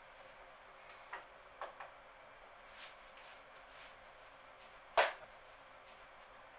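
Scattered light clicks and taps of small objects being handled on a workbench, with one sharper knock about five seconds in.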